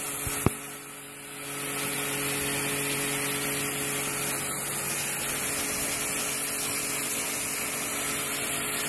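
Pressure washer jet blasting fouling and old paint off a steel boat hull: a steady hiss of spray over a steady motor hum. About half a second in there is a sharp click and the spray drops away for about a second before running steadily again.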